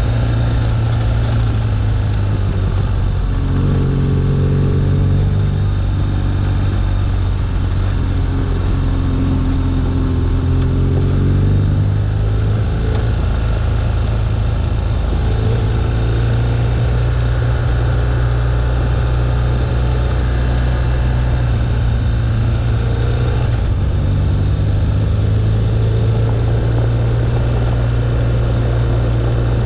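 2011 BMW R1200GS's boxer twin engine running under way, its pitch rising and falling several times with the throttle. Wind and road noise rush over the windshield-mounted camera.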